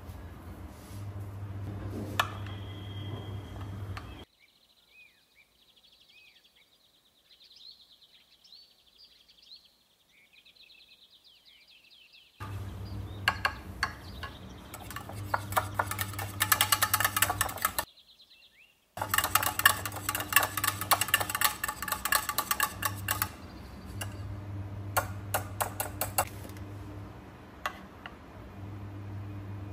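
Kitchen utensils clattering: long runs of rapid clinking and scraping, broken by two quiet stretches in which birds chirp.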